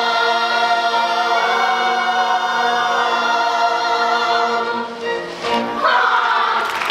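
Children's chorus singing a long held final note of a song with accompaniment, dropping briefly about five seconds in, then swelling to a loud held closing note with vibrato near the end.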